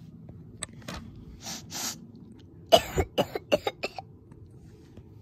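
A child coughing on purpose, acting out a sick doll: two breathy coughs about a second and a half in, then a quick run of about six coughs near the middle.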